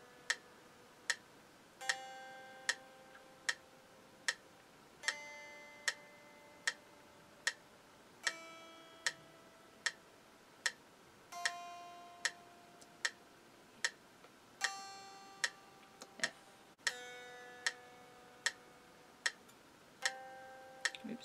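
Single notes plucked slowly on a Fender Squier Stratocaster electric guitar, each note left to ring for about four beats, with the pitch moving between notes on the first and second strings. A metronome clicks steadily underneath at about 75 beats a minute.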